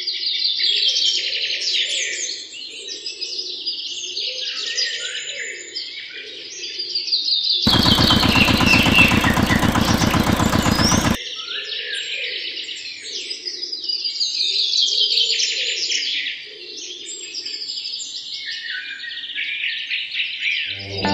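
Many small birds chirping and trilling steadily. A loud, rapidly pulsing rasp cuts in for about three seconds in the middle.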